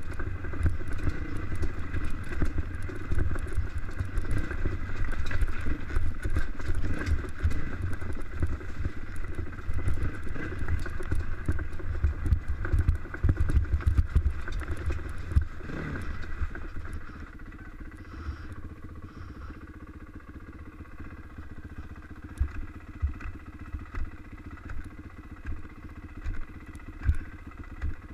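Dirt bike engine running under throttle over rough ground, with heavy wind buffeting on the helmet-mounted mic. About halfway through the revs fall away and the engine settles to a quieter, steady low speed, with a few sharp knocks from the bike over rocks.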